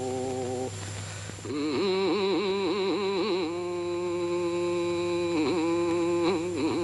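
Background music: a slow melody of long held notes with a wavering pitch, breaking off briefly about a second in and then going on.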